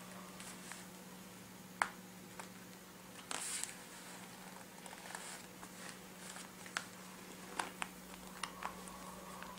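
Metal busk clasps on the front of a corset clicking as they are fastened one by one, with a brief rustle of the corset fabric about three seconds in. A steady low hum runs underneath.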